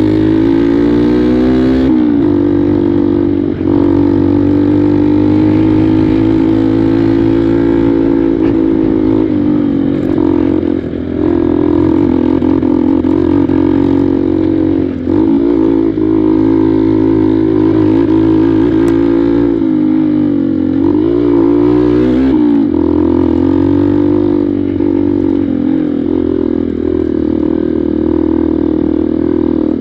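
Honda NXR 150 Bros's single-cylinder four-stroke engine running under way, its pitch climbing near the start as it revs, then dipping and picking back up several times as the throttle is eased and reopened.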